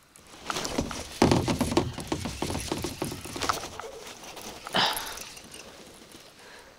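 Reeling in and fighting a hooked fish from a kayak: a rapid, irregular run of clicks and splashy patter, loudest in the first couple of seconds and then fading away.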